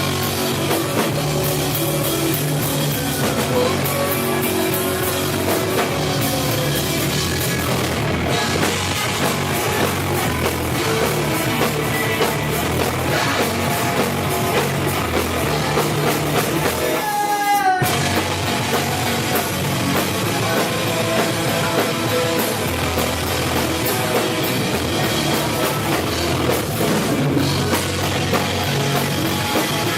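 A rock band playing, led by a drum kit. About 17 seconds in, the band stops briefly under a short falling-pitch sweep, then comes back in.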